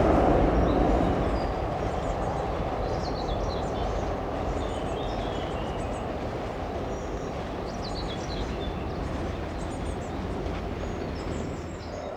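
A SIG high-floor tram running by and fading away over the first couple of seconds, leaving a steady low background rumble with birds chirping.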